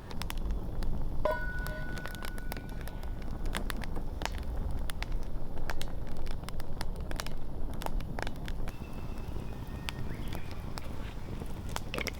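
Wood campfire crackling and popping in irregular sharp snaps. About a second in, a thin high tone holds for around two seconds.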